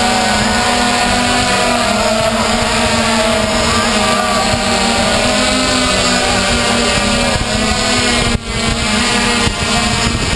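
Mini hexacopter's electric motors and propellers running steadily, heard up close from on board, with the higher whine wavering in pitch as the throttle changes. The sound dips briefly near the end.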